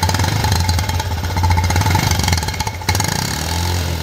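Honda Livo's 110 cc single-cylinder engine running through a silencer fitted with a cut-down oil-bottle insert. The exhaust gives a steady, rapid, deep note with heavy bass, made to imitate a Royal Enfield Bullet.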